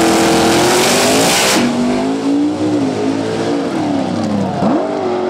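Two nitrous-fed outlaw drag cars held at a steady high rev on the line, then launching and pulling away downtrack. A loud rushing noise over the engines cuts off about a second and a half in, and the engine pitch then wavers up and down as the cars struggle for traction.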